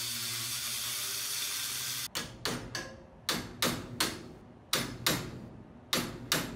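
Angle grinder cutting into steel angle iron: a steady high hiss over the motor's hum, stopping abruptly about two seconds in. Then about ten sharp knocks on the notched steel, each ringing briefly, coming in twos and threes.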